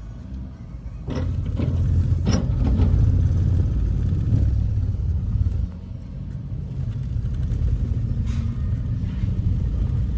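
Steady low rumble of a vehicle in motion, with a few short knocks in the first few seconds. The level drops abruptly about halfway through, then builds again.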